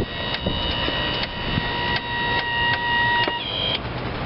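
Hustler zero-turn mower's Kohler 25 HP gas engine running, with a steady high whine over the engine rumble and scattered clicks and knocks. The whine shifts higher and then stops a little after three seconds in.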